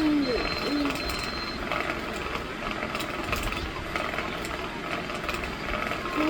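Electric fan running steadily with a fine mechanical rattle.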